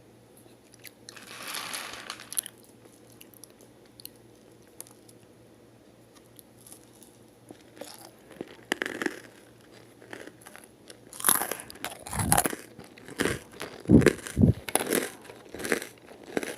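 Close-up chewing and crunching of Koko Ball chocolate cereal balls, a little soggy from the bag being left open. A brief soft hiss comes about a second in, then bites and crunches start about halfway and grow louder and closer together toward the end.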